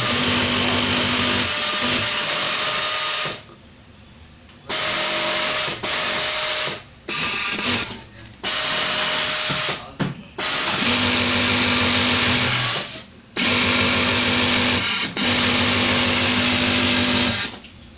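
Yamato flatlock industrial sewing machine stitching in runs of a few seconds, with a steady hum under the needle noise. It stops for about a second a few seconds in, pauses briefly several more times, and stops again near the end.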